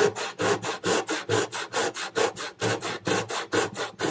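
A Spear & Jackson brass-backed tenon saw is cutting a softwood block in quick, even rasping strokes, about five a second. This is a freehand cut down the middle of a housing-joint trench to break up the waste before it is chiselled out.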